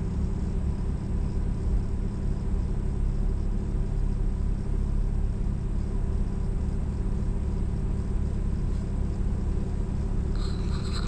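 Car engine idling steadily, a low even hum. Near the end, scraping and clicking start over it.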